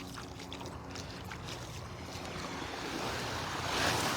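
Small surf washing up onto a sandy beach, with a louder rush of a wave coming in near the end.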